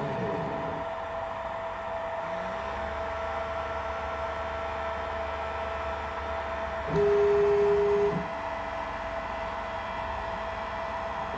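Homemade pick-and-place machine's stepper motors whining as the head moves, with pitch sliding up and down at the start. A louder steady whine comes about seven seconds in, lasts just over a second, and cuts off suddenly, over a constant background hum.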